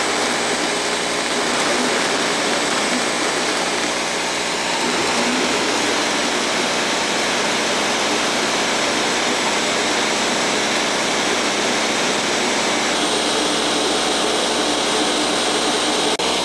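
Two Ninja countertop blenders running at once, a Ninja Mega BL770 on speed 2 and a Ninja Professional Plus BN801 on its Auto IQ smoothie program, blending a frozen smoothie mixture with ice cubes. A loud, steady motor-and-blade whir, shifting slightly in tone about 13 seconds in.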